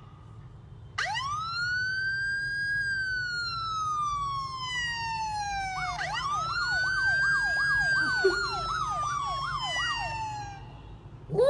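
Emergency vehicle siren: a long wail rises about a second in and slowly falls, then rises again about six seconds in with a fast yelp sweeping up and down over it, roughly two to three times a second, before cutting off near the end.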